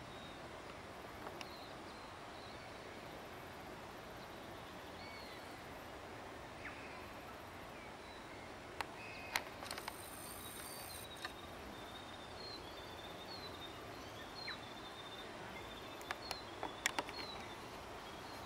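Faint steady outdoor background noise with small birds chirping faintly and repeatedly, and a few sharp clicks or ticks, loudest about nine seconds in and again near the end.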